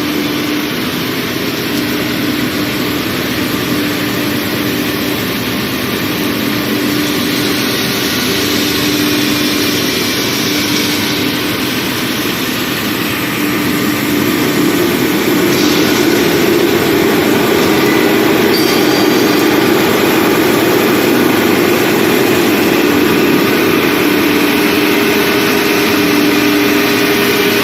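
Deep-hole (BTA) drilling machine running: a steady machine hum with a held tone over a noisy wash, getting louder about halfway through.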